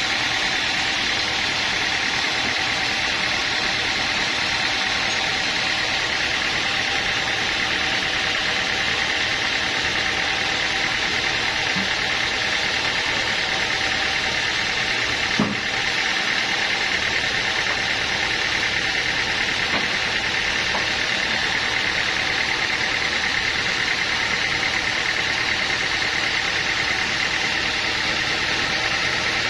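Sawmill machinery running steadily, an even mechanical hiss and hum, with one brief knock about halfway through.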